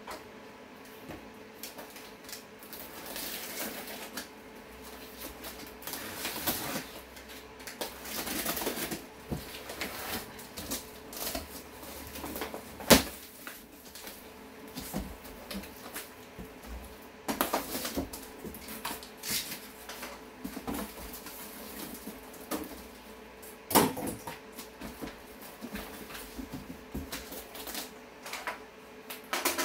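A large taped cardboard box being opened by hand: a box cutter slitting packing tape, cardboard flaps scraping and rustling as they are pulled open, and irregular clicks and handling noises. Two sharp knocks of cardboard stand out as the loudest sounds, one near the middle and one about two-thirds of the way through.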